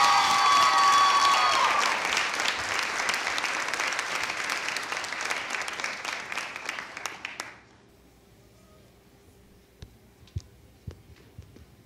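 Theatre audience applauding, with a few voices cheering at first. The applause dies away about seven and a half seconds in, leaving quiet with a few faint knocks.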